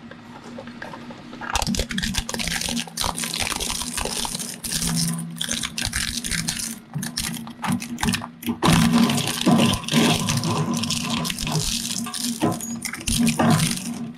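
Twin-shaft shredder's steel cutter discs crunching and cracking a pair of large rubber-armoured SkyMaster binoculars, over the steady hum of the shredder's motor. The crunching starts about a second and a half in and gets louder past the halfway point as the binocular body is torn apart.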